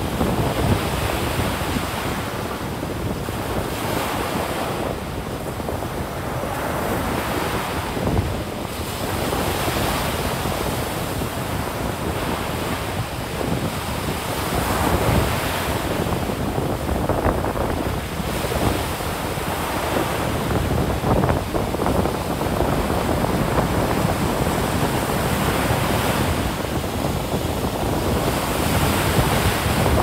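Ocean surf breaking and washing onto a sandy beach in slow, continuous swells, with wind buffeting the microphone.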